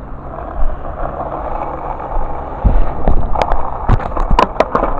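Skateboard wheels rolling on pavement, a steady rumbling noise, with several sharp knocks in the last two seconds.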